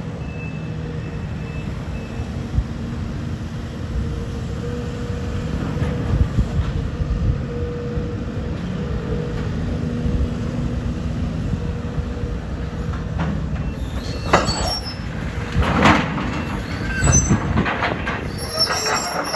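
Heavy demolition machinery running steadily with an engine drone. Near the end come loud crashes and high metal squeals as the building is torn down.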